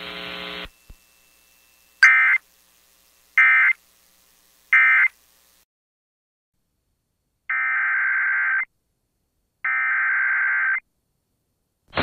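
Emergency Alert System SAME data tones from a radio broadcast. After a low hum cuts off, three short, loud warbling data bursts come about a second and a half apart, the end-of-message signal that closes the alert. These are followed by two longer data bursts about a second apart.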